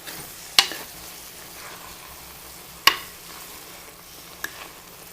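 Steady sizzle of onions cooking down in red wine in a Dutch oven, with a utensil knocking sharply against the pot three times as it searches the pot.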